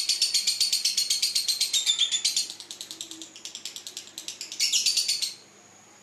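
Lovebird singing its rapid chattering trill (ngekek), about ten shrill notes a second. The trill is loud, drops softer a little past two seconds, comes back loud for a moment, then breaks off abruptly a little after five seconds. The keeper calls the bouts still short.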